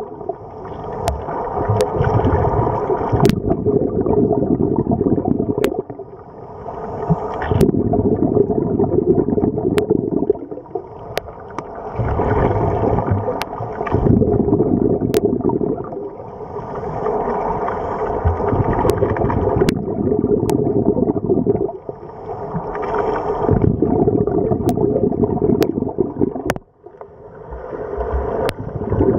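Underwater sound of scuba breathing: a muffled, continuous rumble, with a burst of bubbles from a regulator exhaust about every five seconds as the diver exhales.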